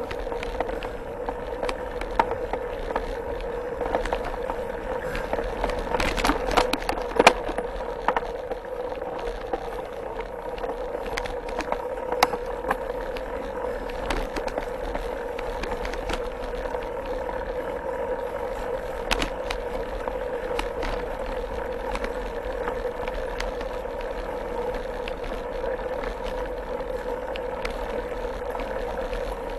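Mountain bike ridden along a dirt singletrack trail, heard from a handlebar mount: tyres rolling and the bike rattling, with a steady hum. Sharp knocks over bumps, the loudest cluster about six to seven seconds in.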